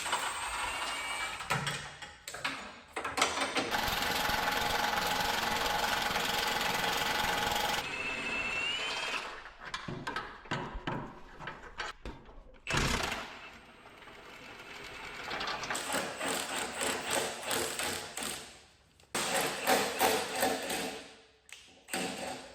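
Workshop tool noise: a power tool runs in spells, mixed with knocks, clatter and short squeaks.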